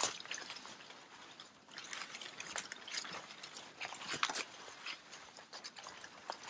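Footsteps crunching on a trail with rustling brush, in an uneven walking rhythm of about one or two steps a second.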